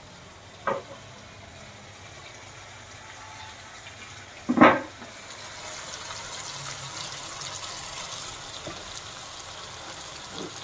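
Thick spiced tomato-and-milk masala sizzling and bubbling in oil in a kadhai, the hiss starting about halfway and growing, as the oil begins to separate from the masala. Two sharp knocks, about a second in and about halfway, the second the loudest.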